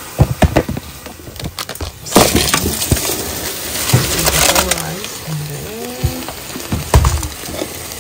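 Dry basmati rice tipped into a cooking pot: clinks and knocks at first, then about two seconds in a loud rushing hiss of pouring grains that eases off after a few seconds, followed by scattered knocks as it is stirred in.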